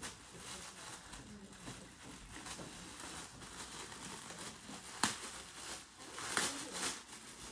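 Thin plastic wrapping bag rustling and crinkling as it is handled and opened to take out a handbag, with a sharp click about five seconds in.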